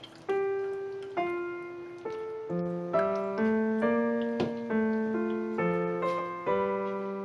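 Background piano music: a gentle melody of notes struck about every half second to a second, each one fading away.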